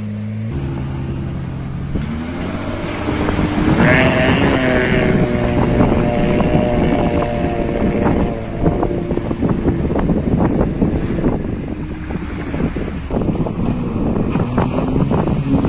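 4x4 engine revving up as it drives through shallow seawater, the pitch rising about two to four seconds in and then held, with water splashing and wind on the microphone.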